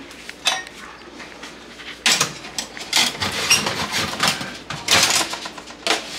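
Aluminium foil crinkling and rustling in a run of irregular crackles as it is peeled back from a baking tray with a hand and metal tongs.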